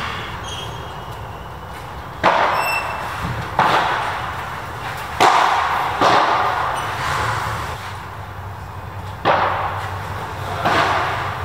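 Padel rally: the ball struck back and forth by padel rackets, about six sharp pops at irregular intervals, each echoing in the covered court.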